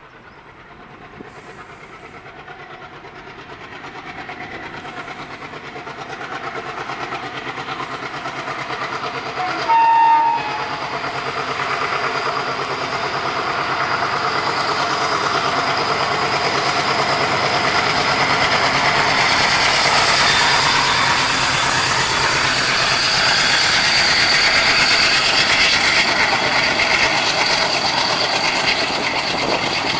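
A passenger train approaching, its running noise swelling steadily louder. About ten seconds in it sounds a short horn blast lasting about a second, then it keeps running close by with its wheels clattering rhythmically over the rails.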